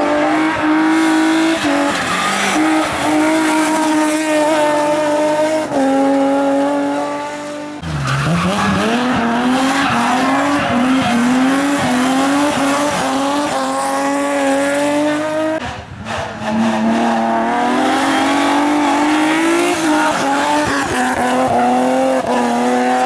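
Racing car engines at full throttle on a hillclimb. The engine note climbs steadily and drops sharply at each gear change. The sound cuts abruptly about 8 and 16 seconds in to a different pass: after the first cut, a car pulls away from low revs through a rapid run of upshifts.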